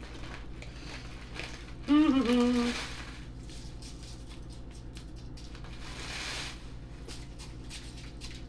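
A short hummed vocal sound from a person about two seconds in, then a brief soft rustle a few seconds later, over a steady low electrical hum.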